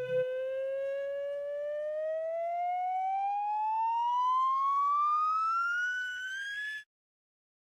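Cartoon whistle sound effect: one whistling tone that glides slowly and steadily upward in pitch for about seven seconds, then cuts off suddenly.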